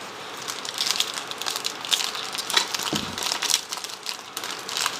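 Crinkling and crackling of a foil trading-card pack wrapper being handled, in many short irregular crackles, with one duller knock about three seconds in.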